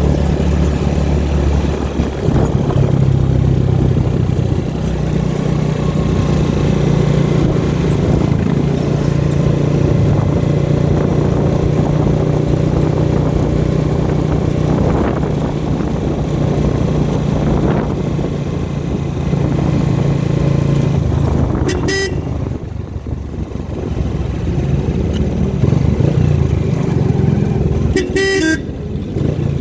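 A motor vehicle's engine running steadily on the road, with a horn tooting briefly twice near the end.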